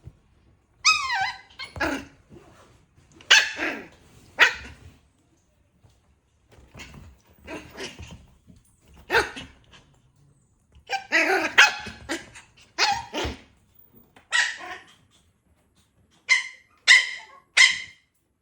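A puppy barking and yelping in short bursts with pauses between them, starting with a yelp that falls in pitch. It ends with three quick yips in a row.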